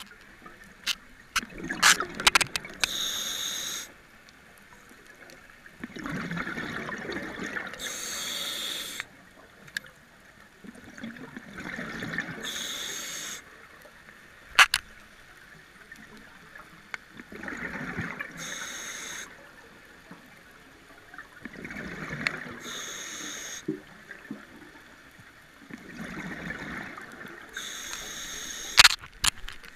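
A scuba diver breathing through a regulator underwater: a short hiss on each inhale, then a longer bubbling burst on the exhale, in a cycle of about five seconds. A few sharp clicks cut in, near the start, midway and near the end.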